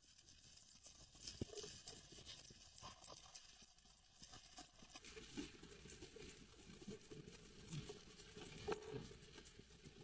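Faint underwater crackling and scattered small clicks, with a couple of sharper knocks, about a second in and near the end.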